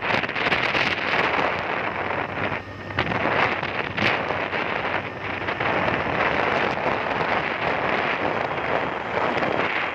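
Wind rushing over the microphone of a moving vehicle, a steady noisy rush with a brief lull a little under three seconds in.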